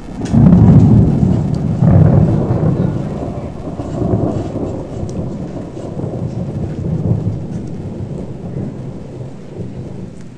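Thunder rolling over steady rain in a strong thunderstorm. The rumble is loudest just after the start, swells again about two seconds and four seconds in, then slowly dies away.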